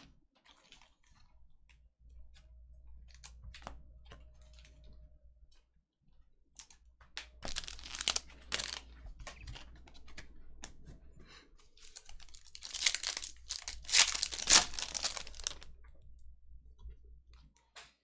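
Foil wrapper of a Bowman Chrome trading-card pack being torn open and crinkled by hand. It comes in noisy bursts about seven seconds in, and again, louder, from about 13 to 15 seconds in.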